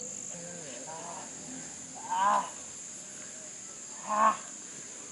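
A person's short wordless vocal calls, two louder ones about two seconds apart with fainter ones before them, over a steady high-pitched drone of insects.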